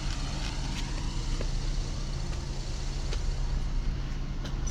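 A steady low hum with scattered light clicks and cloth rustles, made as a person climbs out of a small car's driver's seat holding the phone.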